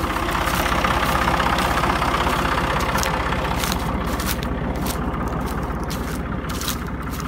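An engine running steadily at idle, with a fast, even low pulse.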